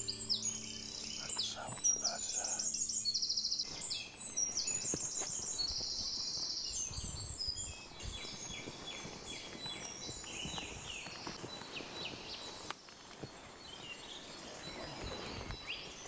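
Dawn chorus of many songbirds singing at once in woodland, densest in the first few seconds and thinning out later. A low steady hum lies under it and stops about four seconds in.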